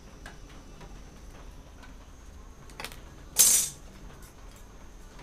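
Faint taps and scrapes of thin aluminium strips being handled on a wooden table. About three and a half seconds in there is one short, sharp metallic clatter as a metal ruler is laid down on the tabletop.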